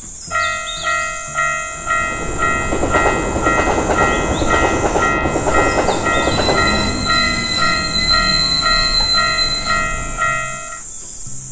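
Japanese railroad crossing warning bell ringing its 'kan-kan' alarm, about two strikes a second, while a train rushes past through the middle. The bell starts just after the beginning and stops near the end.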